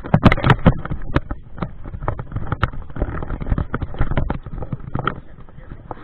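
Footsteps on dry dirt, with irregular knocks and rustling from the body-worn camera jostling as he walks. Wind rumbles on the microphone underneath.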